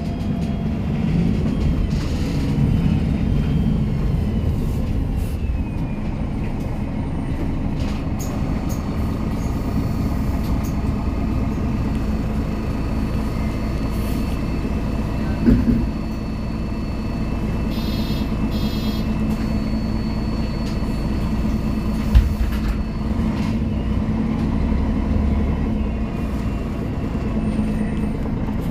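Interior ride sound of a 2003 MAN NG 313 articulated city bus, its straight-six diesel running steadily with road noise. Two short knocks come about halfway and about three-quarters through, and a brief high electronic beeping sounds between them.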